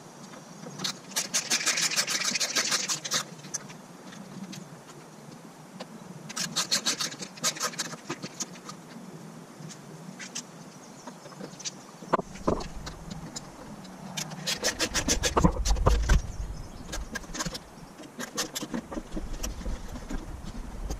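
Screwdriver backing out the sun-visor mounting screws in a car's headliner, heard as several bursts of rapid clicking with handling knocks and rubbing in between.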